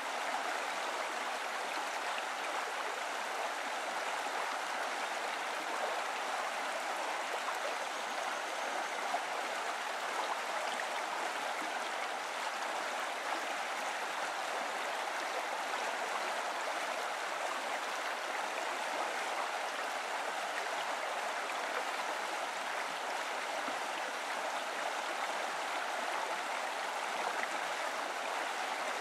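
Steady, even rushing of running water, like a stream flowing over rocks, unbroken throughout.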